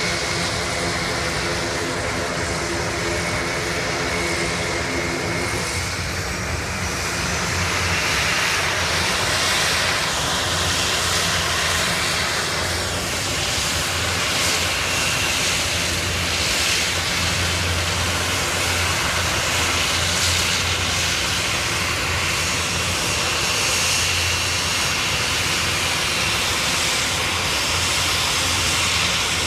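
Large aircraft engines running steadily as the aircraft flies by, with a faint steady whine. A lower set of steady tones fades out about six seconds in.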